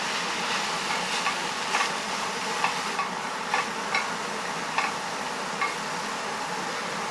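Chopped onion, celery and grated carrot sizzling steadily in a pan just deglazed with pickle brine, while a spoon scrapes and taps the pan bottom several times.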